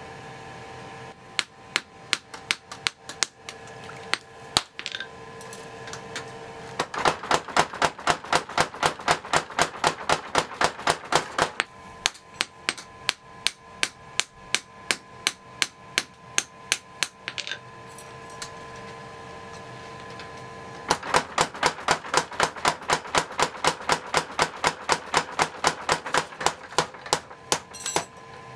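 Hand hammer forging a forge-hot kanna (Japanese plane) blade on an anvil: sharp metal-on-metal blows in runs of about four to five a second. The runs are broken by short pauses, the longest about two-thirds of the way through.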